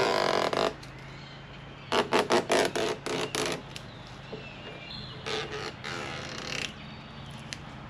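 Red release liner being peeled off 3M double-sided automotive tape under a spoiler, pulled out in quick tugs: a rapid run of short rips, several a second, in spells about a second and a half apart, the last one fainter. A steady low hum runs underneath.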